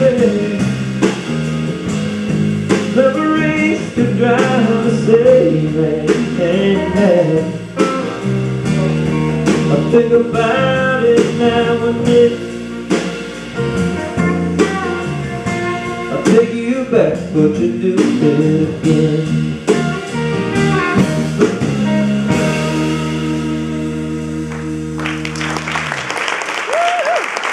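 Live blues-rock band of acoustic and electric guitars, electric bass and drum kit playing the close of a song, with a lead line bending in pitch over the groove. The band lands on a long held final chord about 22 seconds in, and audience applause breaks out about 25 seconds in as the chord dies away.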